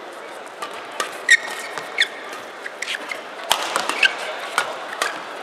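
Badminton rally in a men's doubles match: sharp racket strikes on the shuttlecock at irregular intervals, with short squeaks of court shoes on the floor, over the steady background noise of the hall.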